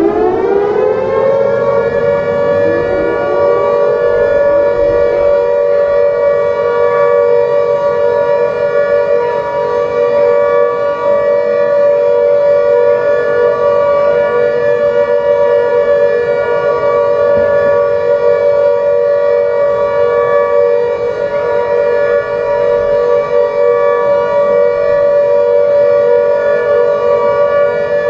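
A loud siren rising in pitch at the very start, then holding one steady, unbroken wail with two close pitches sounding together.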